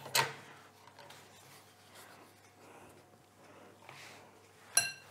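Pasta dough being handled at a hand-cranked chrome pasta machine: soft rubbing of the thin dough sheet, a sharp knock just after the start and a short ringing metal clink near the end.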